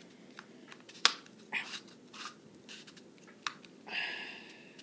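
Handling noise from a plastic spincast fishing reel as its front cover is fitted back over the spool: scattered clicks and taps, one sharp click about a second in, and a brief rasping rustle near the end.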